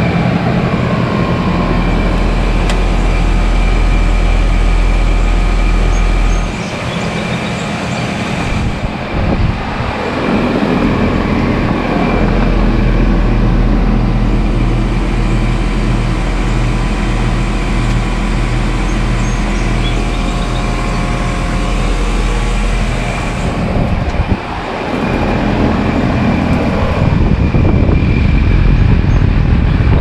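2021 Rheem Classic 14 three-ton central air conditioner's outdoor unit running steadily, its compressor humming under the rush of the condenser fan.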